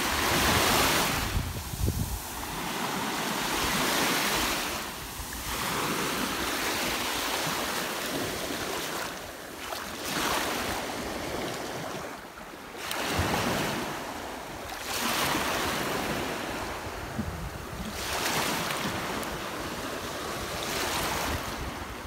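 Small sea waves washing up a sandy beach and drawing back, surging every few seconds.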